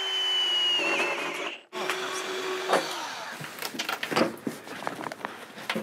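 Cordless drill boring a conduit hole through the bottom of an electrical enclosure, running steadily with a high whine in two runs of a second or two each. Scattered knocks and clatter follow as the enclosure is handled.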